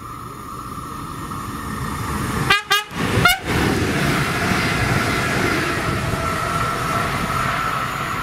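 Bombardier Talent 2 electric multiple unit approaching and running past at speed, its wheel and rail noise swelling. About two and a half seconds in it gives two short horn toots, then passes close with a steady whine over the rumble.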